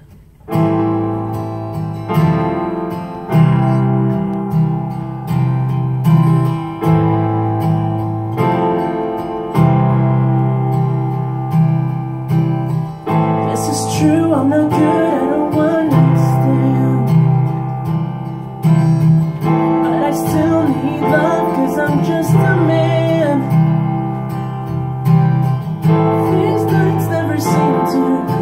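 Live acoustic guitar strumming with digital piano chords, a slow ballad intro. A man's singing voice comes in about halfway through, in phrases over the chords.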